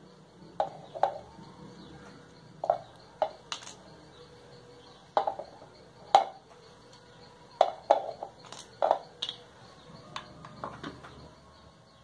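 Irregular small plastic clicks and knocks as an electrical switch module and socket module are handled and set against a PVC pipe cap on a tiled floor, about a dozen in all.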